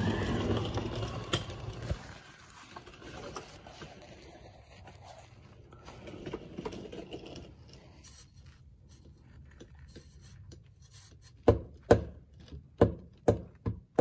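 Rustling and handling noise at first, then a quiet stretch. Near the end comes a quick series of about six sharp knocks, a bit under half a second apart, as a hand works the Chevy Silverado 4x4's driveshaft while checking it for a bad universal joint.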